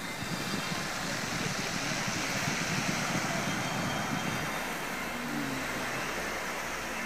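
Ocean surf washing in over a dark cobble beach, a steady hiss of breaking and receding waves.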